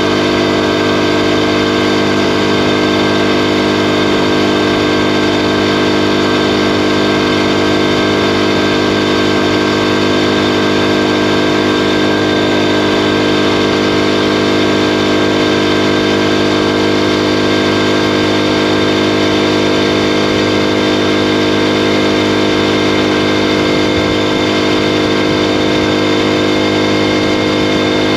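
Predator Ghost 212cc single-cylinder four-stroke engine on a mini bike, fitted with an unrestricted ignition coil and a torque converter, running under load as the bike rides along. Its pitch holds steady throughout, with no revving up or down.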